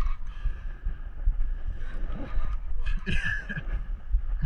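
Wind buffeting the microphone and water slapping and splashing against a small boat's hull on a choppy sea, an uneven low rumble throughout.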